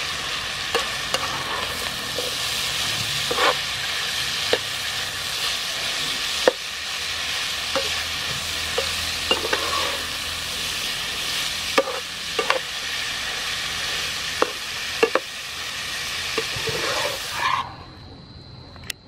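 Food sizzling in a hot frying pan while a metal spatula stirs it, scraping and clinking against the pan every second or so. The sizzle cuts off suddenly near the end.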